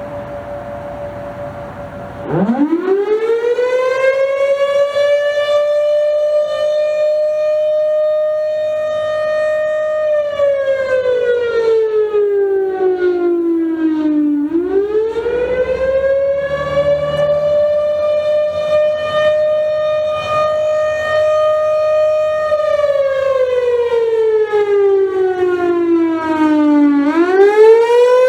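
Federal Signal Thunderbolt 1000 outdoor warning siren sounding the Attack signal during a test. It winds up about two seconds in to a loud, high wail, holds it, slides slowly down, then winds quickly back up, and the cycle repeats about twice.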